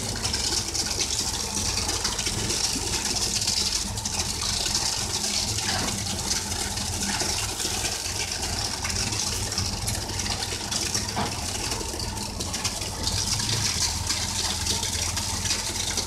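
Self-loading concrete mixer's engine running steadily while wet concrete rushes and splatters out of the turning drum's discharge chute. The rushing of the pour swells a few seconds in and again near the end.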